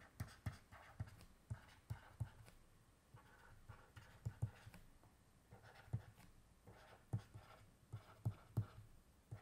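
Faint, irregular taps and scratches of a stylus writing on a tablet screen, a few strokes a second.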